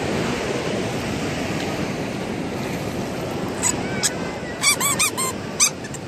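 Steady wash of sea waves on the beach, with a quick cluster of short, high squeaks and clicks a little past halfway through.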